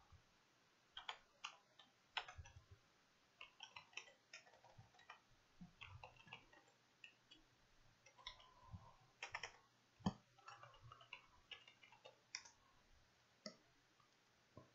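Computer keyboard typing: faint, irregular key clicks, with one louder tap about ten seconds in.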